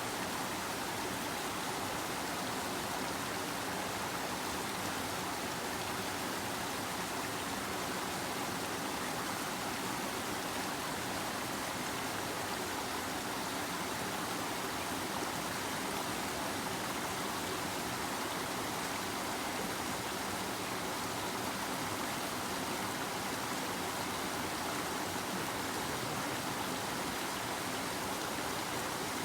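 A river flowing: a steady, even rush of running water.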